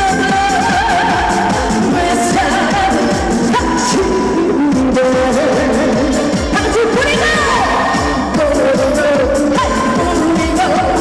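Trot music: an upbeat pop-style backing track with a steady beat and a female singer's voice over it.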